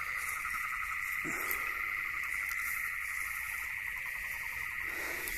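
A steady chorus of frogs calling, a dense, fast-pulsing trill that keeps on without a break.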